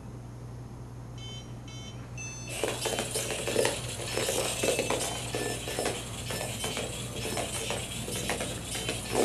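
Pololu 3pi robot's buzzer gives three short beeps, the last one higher, and then its two small gearmotors whir and clatter in uneven surges as it drives the line maze fast on its best-path run.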